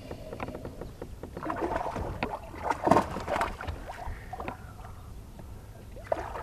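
A hooked bass splashing and thrashing at the water's surface as it is played beside the boat. The splashes are irregular and loudest about three seconds in.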